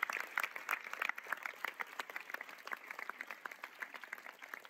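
Audience applauding, the claps thinning out and fading.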